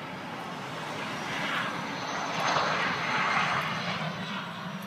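Engine noise of a small airliner passing, a steady rush that swells to a peak a little past the middle and then starts to fade.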